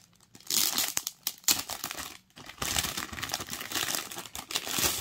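Clear plastic film crinkling and crackling as it is peeled and torn off a planner box by hand, in stretches with a short pause just past two seconds in.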